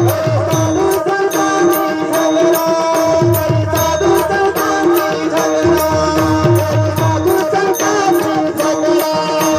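Marathi devotional gaulan (bhajan) music: a tabla keeping the rhythm, with bass strokes that bend in pitch, over steady held tones and a regular beat of bright, sharp strikes.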